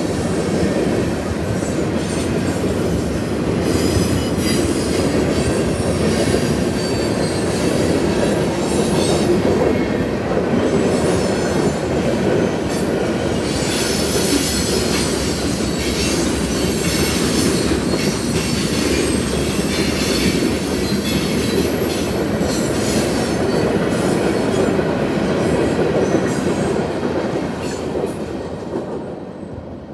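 Freight cars of a mixed freight train rolling past: steady wheel-on-rail clatter with a thin high squeal at times. The sound fades over the last couple of seconds as the last car clears the crossing.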